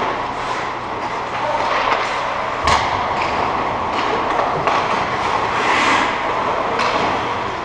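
Ice hockey game in a large echoing indoor rink: a steady hum and the hiss of skates on the ice, broken by several sharp stick and puck clacks, the loudest a knock about a third of the way in.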